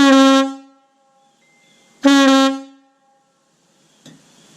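Single-piece Nathan K-1L air horn bell blown twice in short blasts of about half a second each, two seconds apart, each a steady, loud, rich note; a short click follows near the end.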